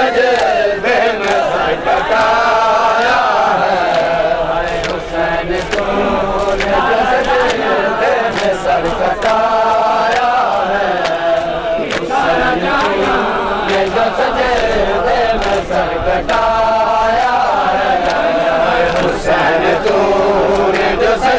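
A group of male mourners chanting together in a repeating rising-and-falling phrase, with sharp slaps of hands beating on bare chests (matam) throughout.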